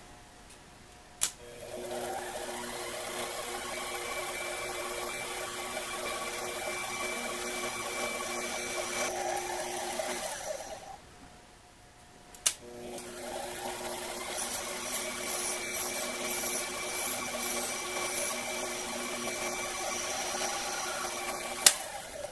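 Small metal lathe running as it cuts a square Delrin air-hose adapter down to length. The machine runs steadily for about nine seconds, winds down, then starts again for another eight seconds or so. A sharp click comes just before each run and another as the second run ends.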